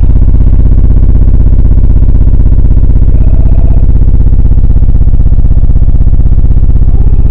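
Audiopipe TXX-BF-15 subwoofers playing a 16 Hz test tone, very loud and steady, heard as a harsh distorted buzz.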